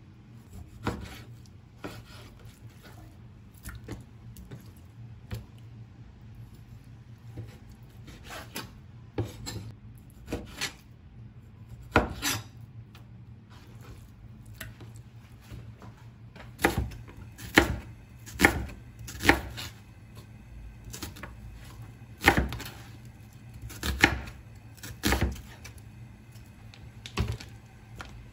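Chinese cleaver slicing raw chicken breast and knocking on a plastic cutting board: irregular sharp knocks, sparse at first, then a faster run of louder knocks in the second half, over a low steady hum.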